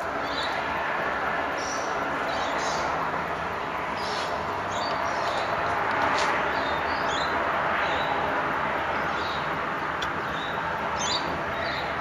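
Morning chorus of many birds chattering at once: a dense, steady din with short, higher chirps scattered through it.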